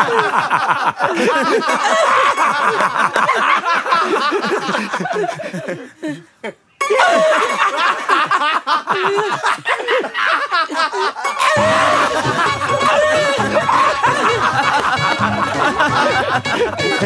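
Two men laughing hard and at length, breaking off briefly about six seconds in and then laughing again. Background music with a low bass comes in about halfway through.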